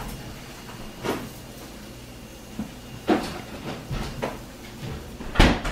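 Kitchenware being handled around a foil-lined metal sheet pan of roasted Brussels sprouts: a handful of short knocks and scrapes, the loudest just before the end.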